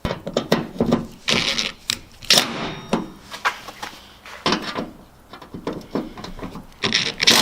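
Irregular clicks, knocks and short scrapes of hand work on truck tailgate hardware: metal parts and tools being handled and fitted.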